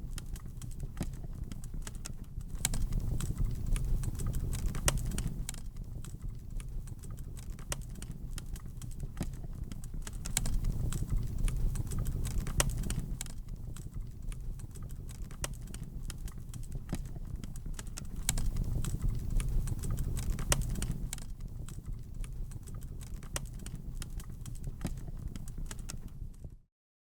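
Wood fire crackling, with frequent irregular sharp pops over a low rumble that swells and fades three times. The sound cuts off abruptly near the end.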